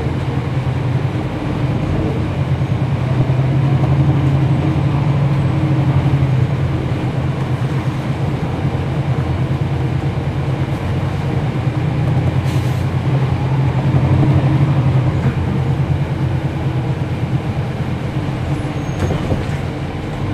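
Cummins ISL9 inline-six diesel engine of a NABI 40-SFW transit bus heard from on board, running steadily with a low hum. The level swells and eases a few times.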